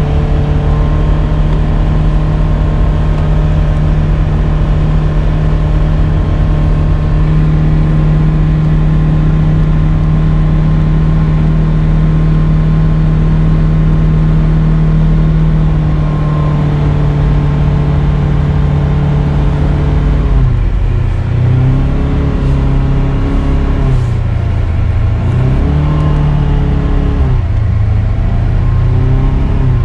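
Polaris Ranger XP 1000 UTV's twin-cylinder engine heard from inside its closed cab, running at a steady low-speed cruise. Past the two-thirds mark the engine note dips and rises about three times as the machine slows down.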